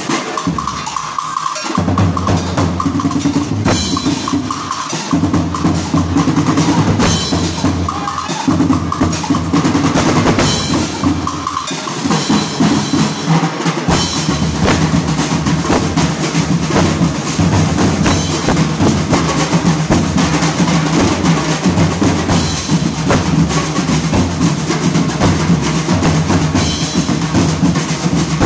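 Ati-atihan drum corps playing a dense, continuous festival beat on big steel-shelled bass drums, snare drums, a rack of small drums and a hand cymbal. The deep bass drums drop out for a moment a few times in the first half, then keep going without a break.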